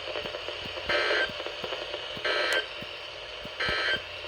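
Emergency Alert System end-of-message signal: three short, identical buzzy data bursts about a second apart, over steady radio hiss. The bursts mark the close of the tornado warning broadcast.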